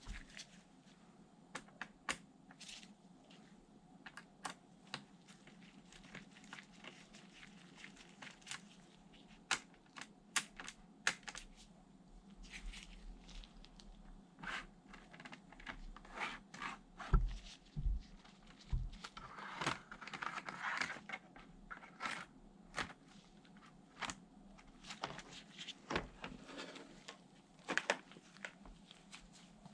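Hands handling laptop parts and packaging during an SSD installation: scattered small clicks and taps, with plastic crinkling. A few dull knocks come about halfway through, followed by a burst of rustling.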